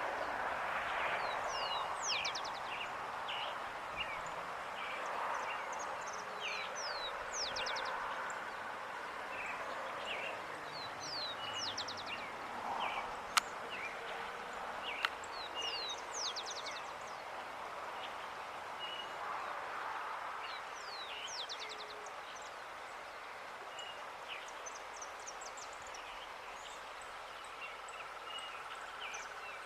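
Small birds chirping and twittering in many short, high notes and quick falling sweeps over steady outdoor background noise. Two sharp clicks come about a second and a half apart near the middle.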